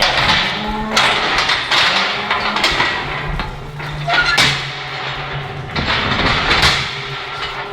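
Knocks and clangs of metal cattle gates and crush as a cow is moved in, about one every second.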